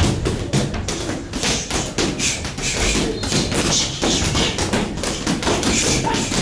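Boxing sparring: irregular thuds and taps, several a second, from gloved punches landing and feet moving on the ring floor.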